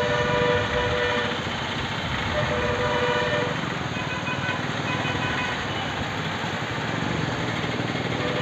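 Steady traffic noise with a vehicle horn sounding in blasts of about a second, several times.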